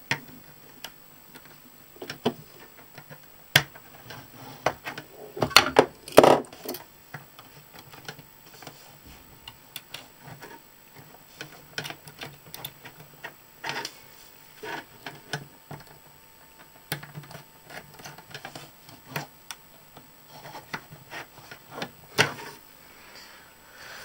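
Scattered clicks, taps and scrapes of a small screwdriver and wires being handled at a circuit board's screw terminal, with a louder cluster of knocks about six seconds in.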